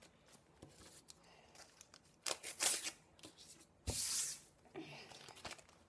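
Foil wrapper of a trading-card pack being torn open and crinkled by hand, in scattered rustles. A louder rustle comes about four seconds in, starting with a knock.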